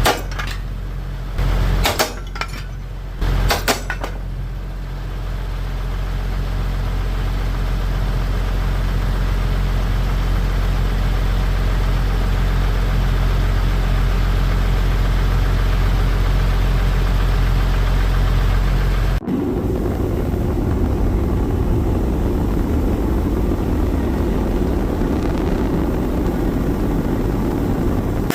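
A machine running with a steady low hum, with a few sharp knocks in the first four seconds. About nineteen seconds in, the sound cuts abruptly to a rougher, noisier rumble.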